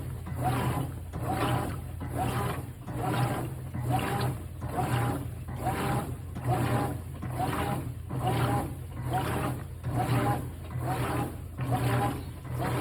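GE top-load washing machine agitating a maximum load with a thick comforter: the washer motor hums steadily while the agitator strokes back and forth about twice a second, each stroke a short whine with water swishing.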